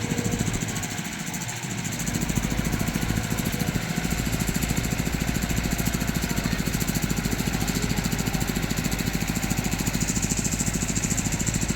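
Heavy machine's diesel engine running steadily with a rapid, even pulse; its low rumble fills out about two seconds in.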